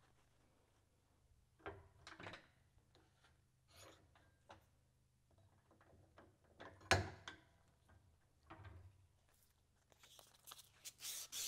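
Hands working on a steel pump shaft clamped in a bench vise: a few faint knocks and rustles, the sharpest about seven seconds in. Near the end come quick, even rubbing strokes along the shaft as it is cleaned.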